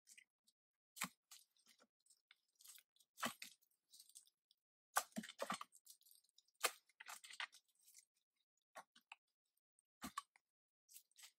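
A long wooden stick prying and jabbing at loose, crumbling rock lodged in an overhang: irregular crunches, scrapes and knocks in short clusters with quiet gaps, as the rock breaks apart.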